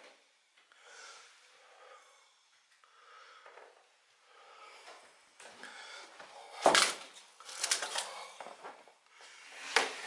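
Footsteps and scuffing of people walking through an empty room, with a sharp knock about two-thirds through, a few smaller knocks just after, and another sharp knock right at the end.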